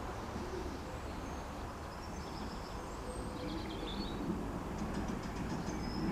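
Birds calling in the trees: a soft low hooting call about half a second in and scattered high chirps, over a steady low rumble that grows a little louder toward the end as a distant tram approaches.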